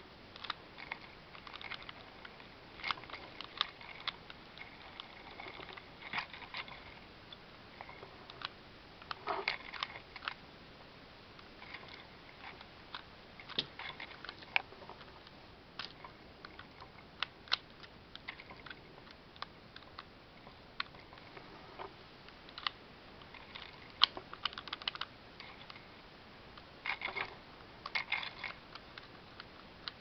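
Plastic LEGO bricks clicking and clacking as the sliding pieces of a LEGO puzzle box are pushed and handled: irregular sharp clicks, some in quick runs.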